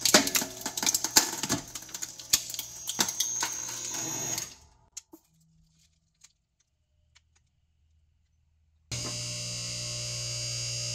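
Hydraulic press crushing a small portable speaker: its plastic housing cracks and crunches repeatedly over a steady hum for about four seconds. Then near silence with a few faint ticks. A steady hum starts again suddenly about nine seconds in.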